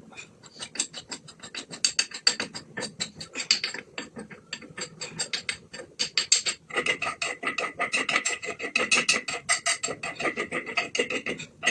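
Rapid, rhythmic rasping and scraping strokes of food being worked by hand, several a second. From about seven seconds in, a steadier ringing tone joins them.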